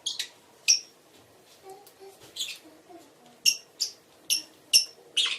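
Parrot giving a run of short, sharp, high-pitched chirps, about eight loud ones at uneven intervals with fainter ones between.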